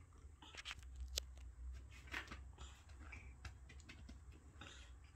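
Faint, irregular splashes, squelches and clicks of hands working soaked plush toys in a plastic tub of soapy water.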